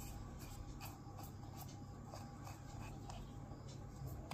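Plastic threads of an RO water-purifier tap faintly scraping and clicking as its upper part is twisted off the body by hand, with a steady low hum underneath.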